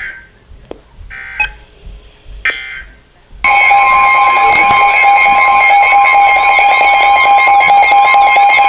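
Midland WR-100 NOAA weather radio receiving a new alert: three short buzzy data bursts about a second apart (the SAME header that encodes the warning), then about a third of the way in a loud steady alert tone with a warbling alarm over it. This is the signal that comes before a severe thunderstorm warning.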